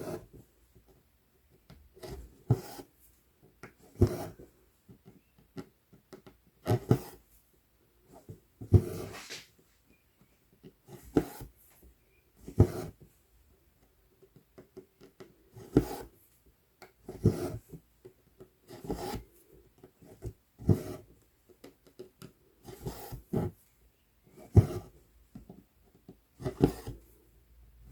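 Embroidery floss pulled through 11-count Aida cloth with a size 24 needle: a short rasp of thread on fabric about every one and a half to two seconds, stitch after stitch.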